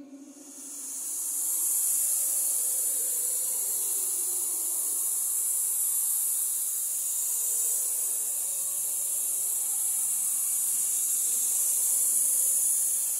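A steady, high hiss of noise, fading in over the first two seconds and then holding even, with faint low tones beneath it.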